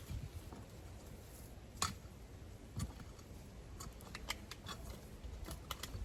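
Scattered sharp snaps and clicks of dry corn stalks being cut and cleared, with one stronger snap about two seconds in and a quick run of clicks near the end.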